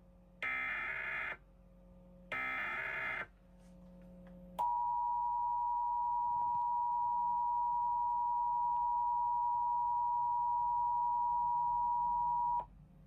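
Emergency Alert System SAME header data bursts: two short, screechy digital warbling bursts about a second apart. About a second later comes the EAS attention signal, a steady two-tone beep held for about eight seconds that cuts off sharply. Together they mark the start of a broadcast Required Monthly Test alert.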